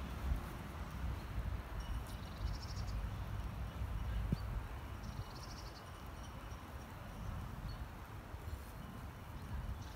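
Low wind rumble on the phone's microphone, with two short, faint, high trills like small birds singing, about two and a half and five seconds in.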